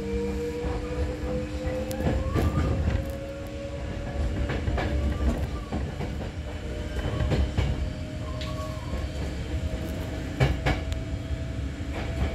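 Hankyu 6000 series electric train running, heard from inside the front car: a motor whine rising slowly in pitch as the train gathers speed, over a low rumble with sharp clicks from the wheels on the track.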